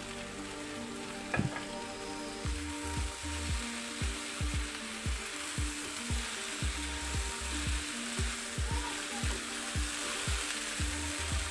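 Macaroni, vegetables and spices sizzling in a nonstick frying pan as a spatula stirs them. From a few seconds in, the spatula knocks and scrapes against the pan about twice a second.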